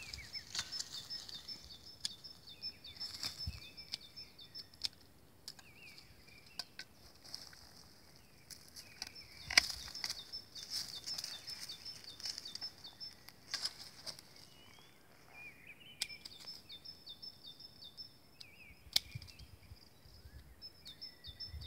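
Long-handled loppers cutting through woody blueberry canes, a sharp snip every few seconds, the loudest about ten seconds in. Birds sing steadily in the background.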